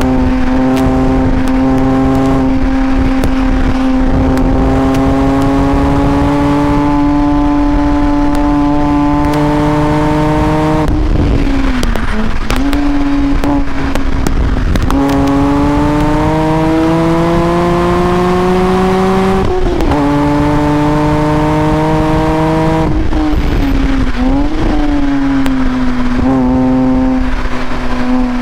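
BMW M Coupe's straight-six engine heard from inside the cabin, running hard at high revs through a lap of a racetrack. Its note climbs steadily under throttle, then drops sharply several times as the throttle is lifted for corners and shifts, with quick dips and rises in pitch.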